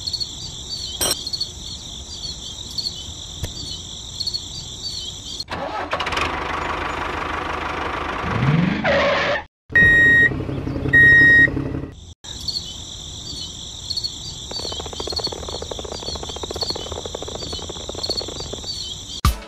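Crickets chirping steadily, broken by a vehicle engine cranking and starting with a rising note, then two short horn beeps; the crickets then resume.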